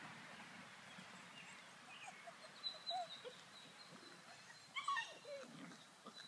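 Puppies whimpering faintly with short high yips, and one louder yelp just before five seconds in.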